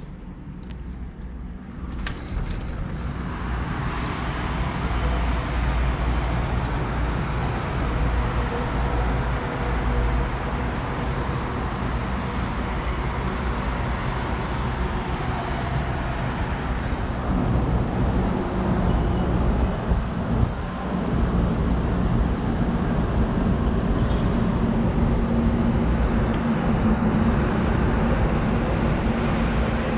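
Steady road-traffic noise from a busy multi-lane road far below, heard from high above, with many vehicles blending into one continuous wash. It swells about two seconds in and then holds steady.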